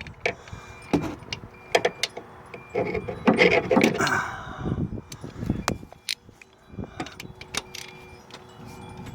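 Irregular sharp metallic clicks and clinks of a hand wrench working on the crankshaft of a seized engine as it is turned by hand, with a denser clatter of metal about three to four seconds in.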